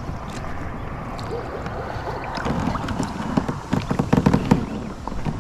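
Water splashing and sloshing beside a kayak as a hooked bass is fought close to the boat; the splashing turns busier and louder from about halfway through.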